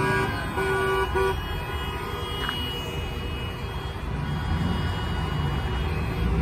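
A vehicle horn honks twice in quick succession, about a second in all, over the rumble of passing traffic. The rumble swells a little near the end as more vehicles go by.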